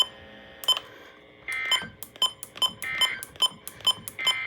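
Electronic beeps: three short steady tones about a second and a half apart, over a fast, uneven run of sharp clicks.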